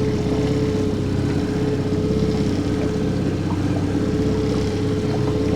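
Boat engine running steadily at trolling speed, an even hum with a steady whine above it.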